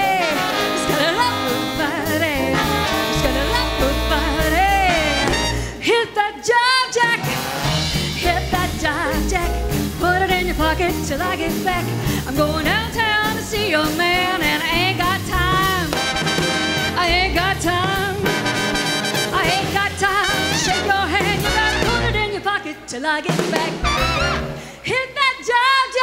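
Live swing dance orchestra playing a jazz number, with trombone and trumpet over upright bass. The band drops out briefly about six seconds in.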